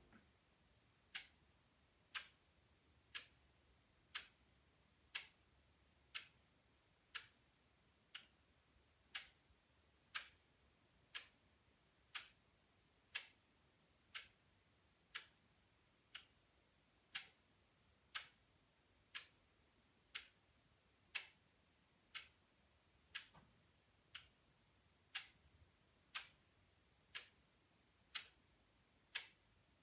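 Relay computer's relays clicking once a second, a single sharp click per clock tick as the 0.5 Hz clock steps the sequencer through its fetch and increment cycle while it runs a program.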